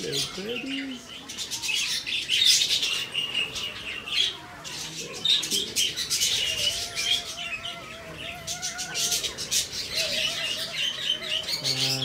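A flock of budgerigars chattering: a dense, continuous stream of rapid high chirps, clicks and warbles, with a few longer wavering calls in the middle.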